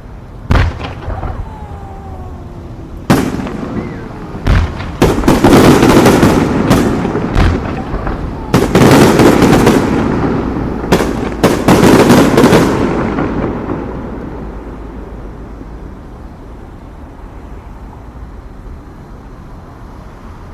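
Aerial fireworks going off: a few separate booms in the first few seconds, then a dense run of bangs and crackling for about eight seconds, dying away to a steady low rumble of distant fireworks.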